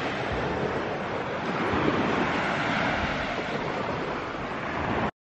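Surf washing on a beach with wind buffeting the microphone, a steady rushing noise that cuts off abruptly near the end.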